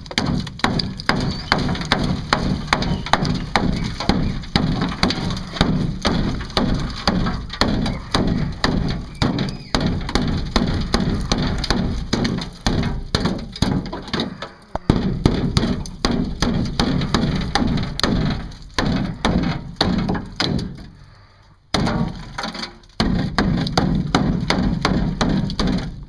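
A hammer beating on the rusted, Bondo-filled wheel arch of a 2001 Chevy Silverado, rapid repeated blows about three a second, with the brittle body filler and rotted sheet metal cracking and breaking away. There are short pauses in the blows around the middle and a longer one near the end.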